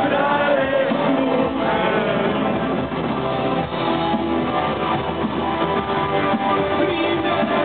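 Live goth rock band playing, guitar to the fore with little singing, recorded through a photo camera's built-in microphone so that it sounds dull and muffled, with no treble.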